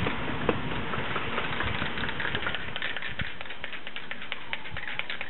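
Aerosol can of Plasti Dip being shaken, the mixing ball inside rattling in a quick run of clicks.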